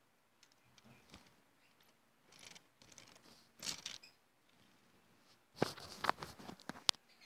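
Faint rustling and clicking of a small plastic Lego car being handled close to the microphone, with a quick flurry of sharp clicks near the end.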